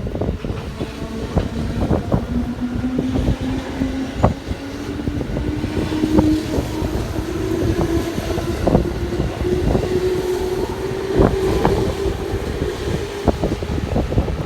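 JR West electric train accelerating, its traction motor whine rising steadily in pitch, with irregular clicks and knocks from the running gear over a low rumble and wind on the microphone.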